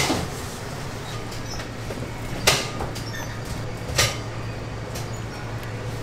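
Three sharp knocks, at the start, about two and a half seconds in and about four seconds in, over a steady low hum.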